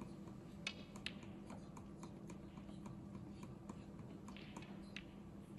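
Snooker balls clicking: two sharp clicks about a second in, the cue ball struck and then meeting an object ball, followed by fainter scattered ticks over a steady low hum.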